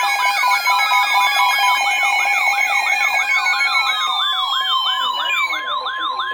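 Several electronic alarm tones sounding together: a fast warbling siren rising and falling about three times a second, over steady beeping tones and slow downward-sliding whistles.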